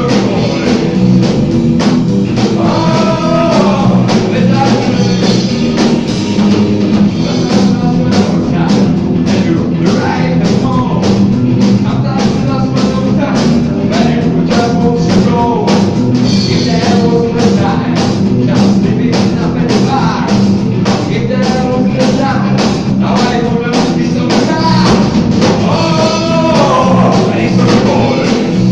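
Live rock band playing: a male singer over electric guitars and a drum kit keeping a steady beat.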